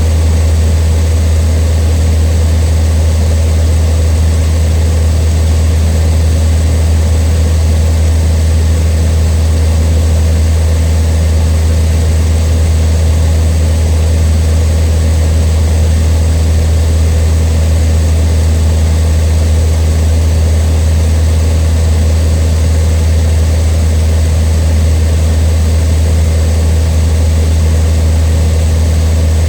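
Cessna 152's four-cylinder air-cooled Lycoming engine and propeller running at a steady power setting: a constant low drone that holds unchanged throughout.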